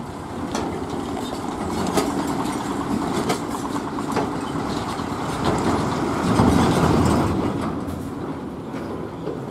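Heavy tipper truck's diesel engine running as it crawls across the railway tracks, with scattered clunks and rattles as its wheels bump over the rails. It gets louder as the truck passes closest, loudest about two-thirds of the way through, then eases off.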